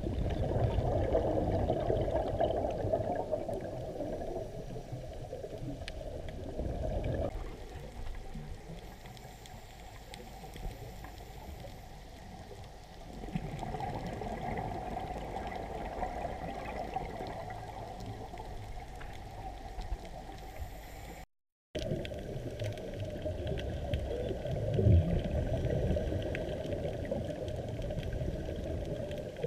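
Underwater bubbling and rushing heard muffled through a camera housing, swelling and fading every few seconds like a scuba diver's exhaled regulator bubbles, with a short dropout about two-thirds through.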